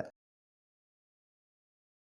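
Silence: the sound track goes dead just after a voice cuts off at the very start.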